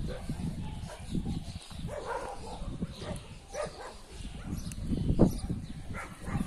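Shelter dogs barking in short, scattered barks as they play, the loudest a little after five seconds in.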